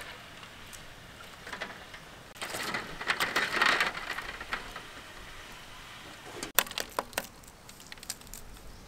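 Boiled duck eggs tipped from a wire skimmer into a basin of cold water with a splash, then a few sharp cracks of eggshells being broken for peeling.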